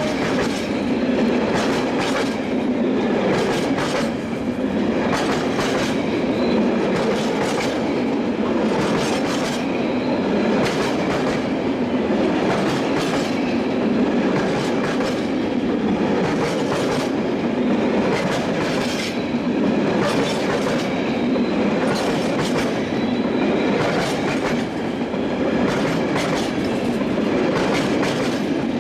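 Long freight train of empty flat wagons rolling past at close range: a steady rumble and rattle, with wheelsets clacking over the rail joints in a regular, repeating rhythm.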